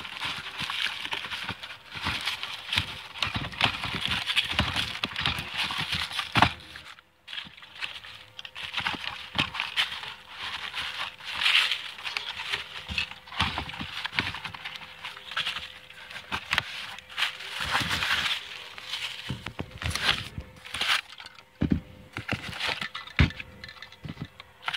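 White packing paper crinkling and rustling as hands pull it out of a cardboard box, with cardboard flaps scraping and a few sharp knocks.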